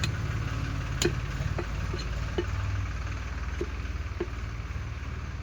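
Sharp knocks of a butcher's cleaver chopping through a goat's head, about seven strikes at uneven intervals. Under them runs a steady low mechanical hum like an idling engine.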